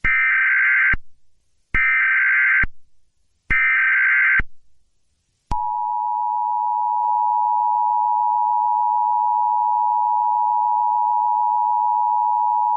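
Emergency Alert System alert opening: three separate one-second bursts of the buzzy SAME digital header, then about five seconds in the two-tone EAS attention signal starts, a steady dual tone that holds.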